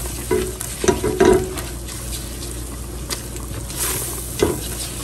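Butter-and-flour roux sizzling in a large metal pot while a silicone spatula stirs and scrapes across the pot bottom. A few louder scrapes come in the first second and a half, and one more about four and a half seconds in.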